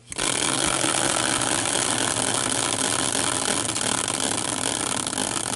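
Prize wheel being spun, its clicker rattling in a fast, dense run of ticks that starts abruptly.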